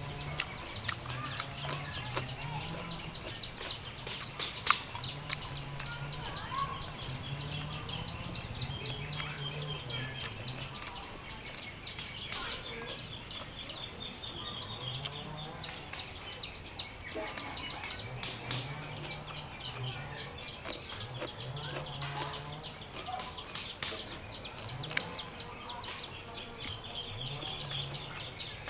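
Chickens in the yard: a continuous stream of rapid, high, falling peeps, with lower drawn-out sounds underneath and scattered small clicks.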